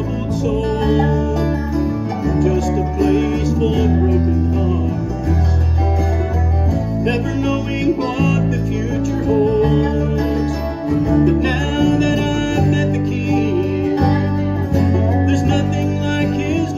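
Bluegrass band playing, with banjo picking over strummed acoustic guitars and an electric bass line.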